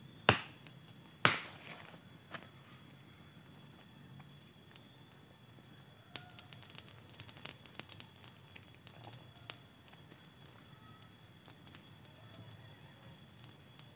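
Small campfire of wood sticks crackling, with two loud sharp wooden snaps about a second apart near the start and a run of lighter crackles in the middle.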